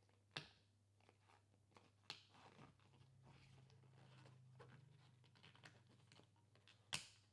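Gloved fingers working a rubber dam sheet down over the teeth of a model jaw: quiet rubbing and stretching of the latex, broken by three sharp clicks, the loudest near the end.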